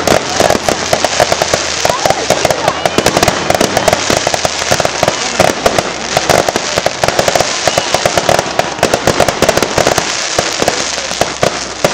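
Aerial fireworks display: a loud, unbroken stream of bangs and crackles, many per second, as shells burst overhead.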